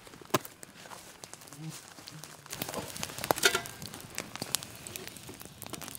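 Campfire crackling, with irregular sharp pops and a louder stretch of rustling about three seconds in.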